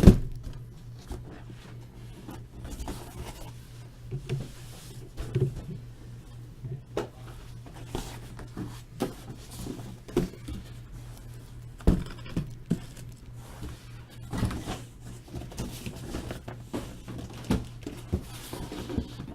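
Small cardboard trading-card boxes being handled and worked out of a tightly packed case: scattered knocks, thunks and scrapes, the hardest at the very start and about twelve seconds in, over a steady low hum.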